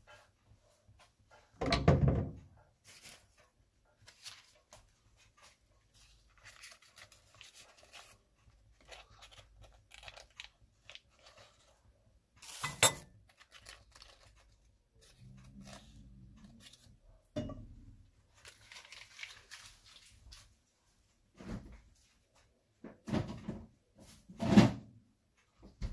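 Kitchen handling noises at a gas stove: a handful of separate knocks of a metal wok on the burner grate, the first and one of the loudest about two seconds in, with faint crinkling and tearing of a foil butter wrapper between them as the butter is unwrapped and dropped into the wok.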